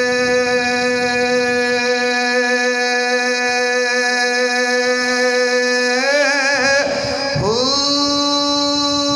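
A man's voice chanting rubaiyat verse, holding one long sustained note. About six seconds in the note wavers in an ornament, dips briefly and swoops up to a slightly higher note, which is then held.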